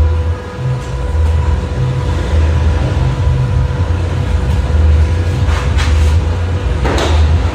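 Car engine running with a steady low rumble, with a couple of short noisy knocks or rustles near the end.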